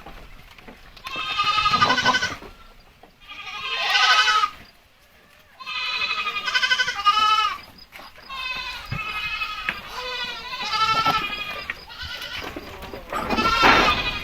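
Goats bleating repeatedly: a string of quavering calls, several overlapping, with short pauses between them.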